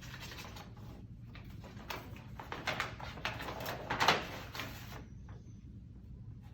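Paper rustling and crinkling as a sealed bid envelope is opened and its documents are taken out, in irregular bursts that are loudest about four seconds in.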